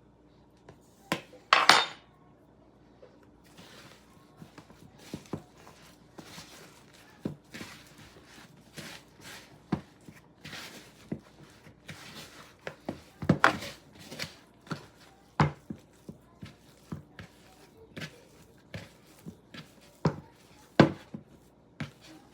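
Sticky sourdough dough being kneaded by hand: irregular knocks, slaps and clinks a second or so apart, the loudest about a second and a half in.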